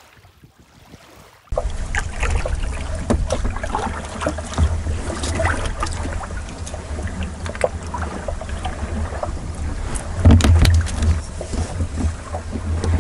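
Wind noise on the microphone over water lapping around a kayak, with scattered knocks and splashes of paddles against the hulls and a louder patch about ten seconds in. It starts suddenly about a second and a half in, after a faint breeze.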